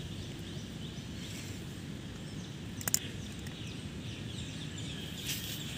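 Open-air ambience with a steady low rumble and faint bird chirps, broken by a couple of sharp clicks about three seconds in.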